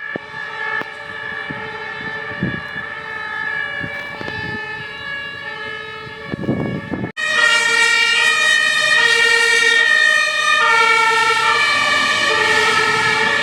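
Two-tone sirens (Martinshorn) of fire engines on an emergency run, the pitch stepping back and forth between two notes. After a cut about seven seconds in it is louder, with several sirens sounding over one another out of step.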